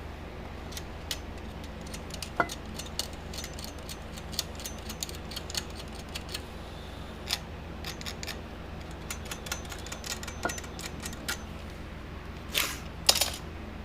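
Light, irregular ticks and scrapes of hand tools working a thin varnish-coated wire, scraping off the coating so solder will take. A couple of louder clacks come near the end, over a steady low hum.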